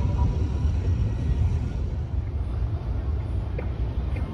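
Low, steady rumble of an approaching D19E diesel-electric locomotive, with a couple of faint clicks near the end.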